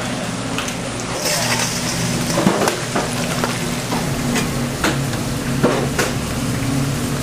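Food frying and sizzling on a hot cooking surface, with repeated sharp clicks and taps of metal utensils. A louder hiss comes about a second in, over a steady low hum.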